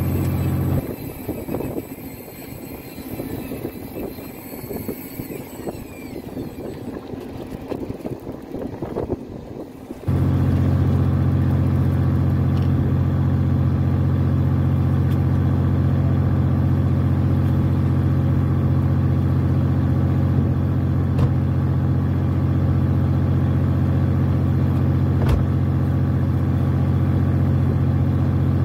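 Fishing boat's engine droning steadily with a low hum. For the first nine seconds or so the drone drops away and a quieter, uneven rushing noise takes its place, then the drone comes back suddenly.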